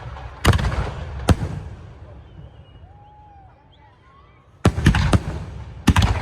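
Sky-shot aerial fireworks bursting: two loud bangs about a second apart near the start, then three more in quick succession near the end, each trailing off in a short rumble.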